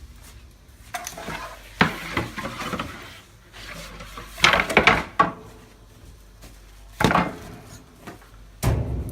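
Wood and metal scraping and clattering in about four short bouts, as of tools or a peel being worked at a wood-fired bread oven.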